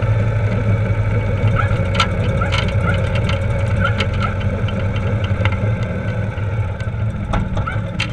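Ural Gobi sidecar motorcycle's air-cooled 750 cc boxer twin running steadily at low road speed, a deep even drone.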